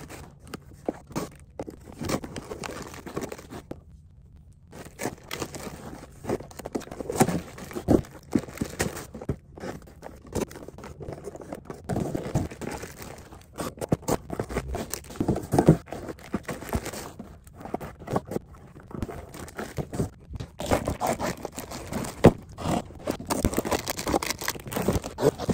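Plastic mailer bags being torn open and a cardboard shipping box unpacked by hand: irregular ripping, crinkling plastic and scraping cardboard, with a short pause about four seconds in.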